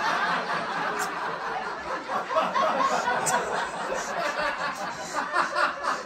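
Audience laughing: many people chuckling and giggling at once, loudest at first and easing off a little.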